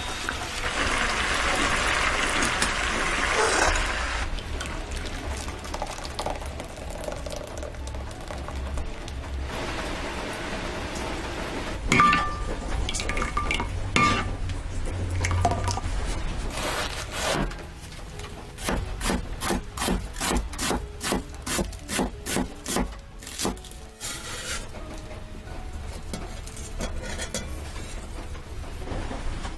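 Sweet chili sauce bubbling and sizzling in a pan as a spatula stirs it. Later, a knife cuts through a head of lettuce in a steady run of crisp strokes, about two a second.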